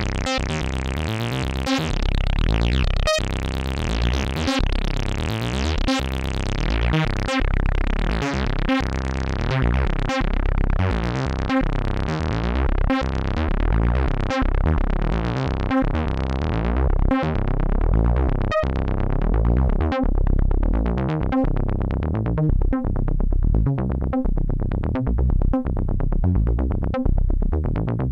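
Dreadbox Typhon analogue monophonic synthesizer playing a repeating sequence of short notes, their tone growing darker as the filter closes over the passage.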